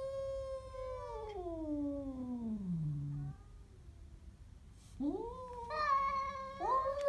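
Siamese cat yowling at a stray cat: a long, drawn-out yowl that slides down in pitch into a low growl and stops about three seconds in. After a short pause, two more rising yowls start near the end. It is a territorial warning at the other cat.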